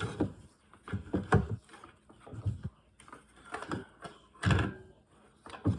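Plastic clicks and knocks from a new speaker being pressed into a handheld CB radio's housing, a string of separate knocks with the loudest about four and a half seconds in.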